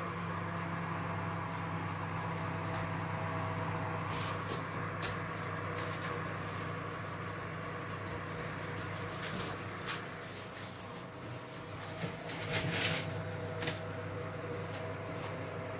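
A steady low hum from a kitchen, with scattered small clicks and light knocks of things being handled, more frequent in the second half.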